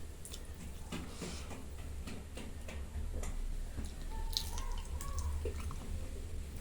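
Close-miked mouth sounds of a person eating dal bhat: scattered soft clicks and smacks of chewing, over a steady low hum.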